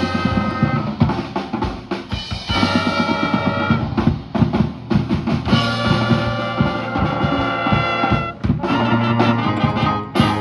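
High school marching band playing: drums beating a driving, heavily accented rhythm of rapid hits under sustained brass chords, with one big hit near the end.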